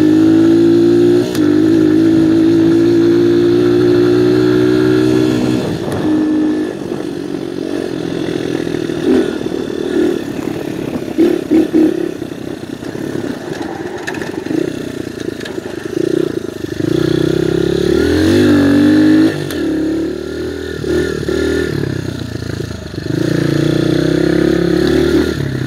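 Viper 150cc dirt bike engine running under steady throttle, then easing off about six seconds in and running rougher, with the revs rising again around eighteen seconds and once more near the end.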